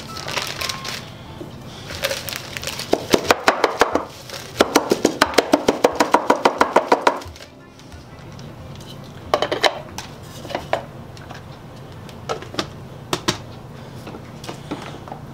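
Plastic blender jar being rapped and shaken, about six quick knocks a second, as ground-up HDPE bottle-cap bits rattle out of it into a plastic zip-top bag. Near the end come a few scattered clicks and rustles of the bag and jar being handled.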